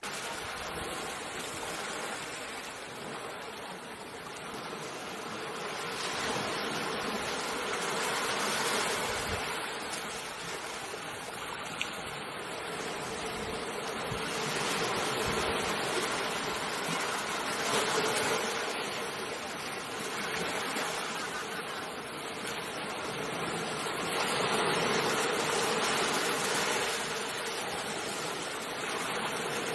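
Ocean waves washing ashore, a continuous rush of surf that swells and eases every several seconds as each wave breaks and draws back.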